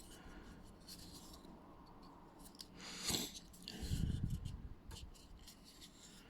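Hands handling a plastic belt clip and its packaging: scattered light clicks and rustling, a louder rustle about three seconds in and a dull knock just after.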